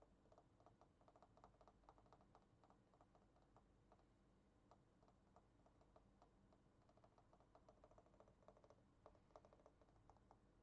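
Faint typing on a computer keyboard: quick, irregular key clicks in uneven runs.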